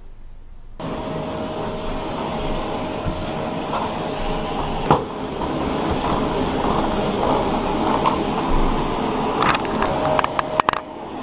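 A motor-driven machine running steadily with a high whine, switching on abruptly about a second in, with a few sharp clicks near the end.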